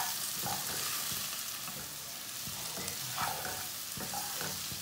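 Okra pieces sizzling in hot oil with ground spices in a nonstick wok, a steady frying hiss. A wooden spatula stirs and tosses them, scraping against the pan every second or so.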